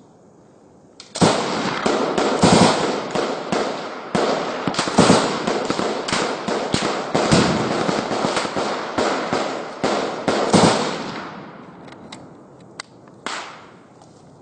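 Heavy gunfire in a firefight: a long stretch of rapid, overlapping shots starting about a second in and lasting roughly ten seconds, then a few single shots near the end.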